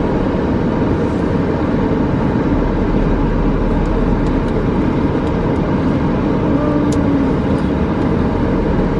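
Steady low rumble and hiss of a stationary car, heard inside the cabin.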